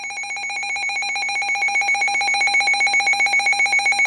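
Electronic alert tone between emergency alert broadcasts: a shrill, buzzy tone at one steady pitch, trilling rapidly like a phone ringer and growing louder, stopping right at the end.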